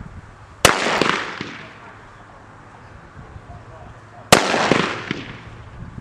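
Two blank-pistol shots about three and a half seconds apart, each a sharp crack with an echo trailing off over about a second: the gunfire test during a dog's heeling exercise in an obedience trial.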